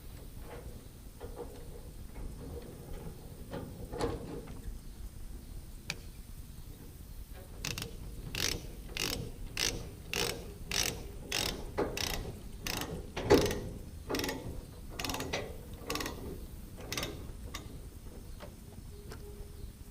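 A run of sharp mechanical clicks, about two a second, that starts several seconds in and stops a few seconds before the end, over a low steady rumble.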